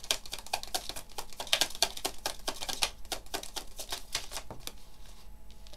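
A tarot deck being shuffled by hand: a quick, even patter of cards slapping together, about eight a second, stopping a little before the five-second mark.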